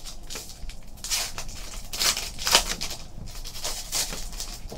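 Foil trading-card pack wrapper crinkling and tearing as it is pulled open by hand, in a series of short, crisp rustles.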